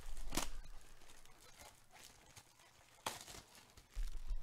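Plastic shrink-wrap on trading card boxes crinkling and rustling as the boxes are handled and shuffled, with sharp rustles about half a second in and again about three seconds in.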